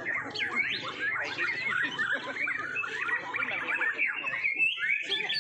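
Several white-rumped shamas (murai batu) singing at once: a dense, continuous tangle of overlapping whistles, chirps and rapid trills, with a low murmur of people underneath.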